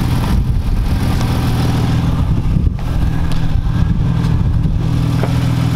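BMW E36 M3's S50 inline-six engine idling steadily with no rod knock, running on freshly replaced rod bearings.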